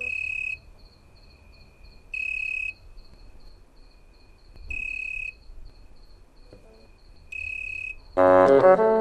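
Crickets chirping in a summer night ambience: a high, pure trill in half-second bursts, four times about two and a half seconds apart, over a fainter, fast, even pulsing chirp. Near the end a loud note of brass-like music comes in.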